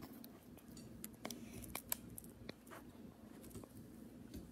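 Wooden spoon stirring softened butter in a glass bowl: faint, scattered clicks and scrapes as the spoon knocks and drags against the glass.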